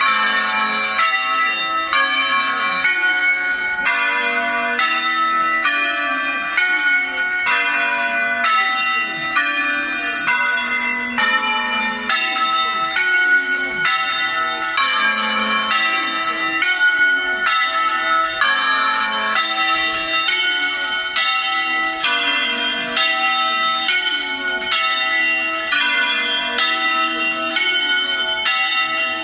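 A ring of church bells tuned in A-flat, rung by hand in the Veronese style. The bells strike one after another in a steady, unbroken sequence, about two strokes a second, with the pitch changing from bell to bell.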